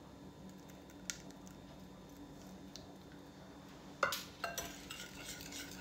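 About four seconds in, a sharp clink followed by a couple of seconds of clinking and scraping: a wire whisk against a glass mixing bowl of yogurt and cream.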